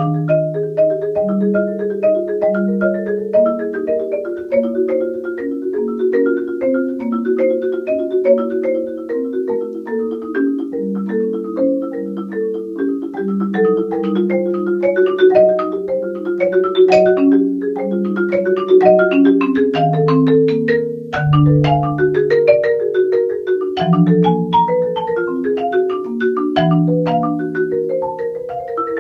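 Concert marimba played with four mallets: a steady stream of quick notes in several voices, with low notes ringing under the higher ones.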